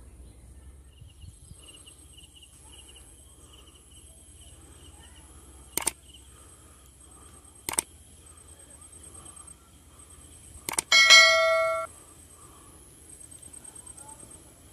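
Subscribe-button animation sound effect: sharp clicks about two seconds apart, then a bright bell ding near the end that rings for about a second and is the loudest sound. Underneath, a steady high insect trill.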